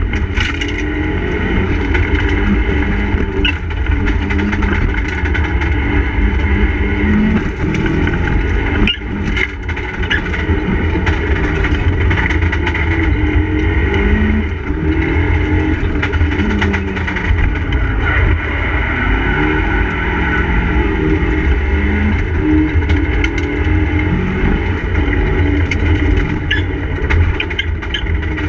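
Mitsubishi Lancer Evolution IV's turbocharged four-cylinder engine, heard from inside the cabin, pulling hard with the revs climbing and dropping again and again through gear changes and corners, over constant road and drivetrain noise with occasional sharp clicks.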